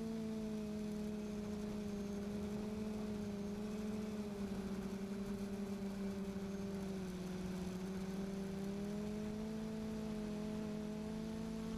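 QAV540G multirotor's electric motors and propellers humming steadily, the pitch sagging slightly about halfway through and rising again as the throttle changes.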